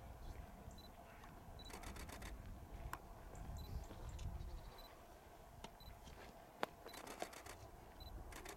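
Single-lens reflex camera shutters firing in burst mode: three bursts of rapid clicks, with one sharper single click between the second and third, and short faint high beeps in between.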